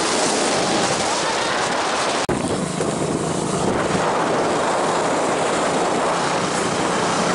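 Wind buffeting the microphone of a moving motorcycle, with the bike's engine and road noise underneath, a dense steady rush. It drops out for an instant about two seconds in, then carries on with a faint steady engine hum.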